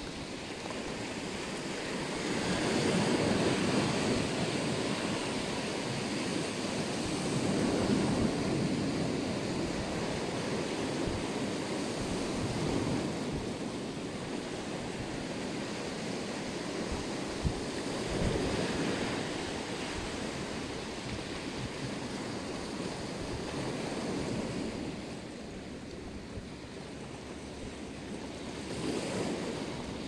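Sea surf breaking and washing over rocks and pebbles on a rocky shore, a steady rush that swells louder every several seconds as each wave comes in.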